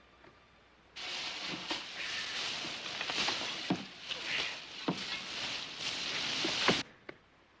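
Loose dirt and rock being dug out of a caved-in mine shaft: a steady gritty hiss with several sharp knocks, starting about a second in and stopping abruptly near the end.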